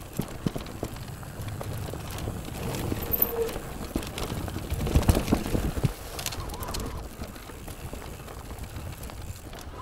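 Mountain bike rattling and clattering along a rough trail: many short knocks and clicks over a steady low rumble of tyre and wind noise, heaviest about five seconds in.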